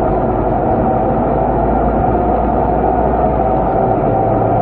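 Scania K230UB city bus heard from inside the passenger cabin while under way: its diesel engine and drivetrain running steadily, a steady whine over a low drone.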